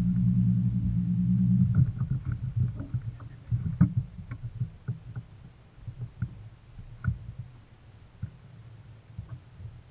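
A boat motor running steadily, then cut off suddenly a little under two seconds in. Scattered knocks and thumps of movement on the boat's deck follow.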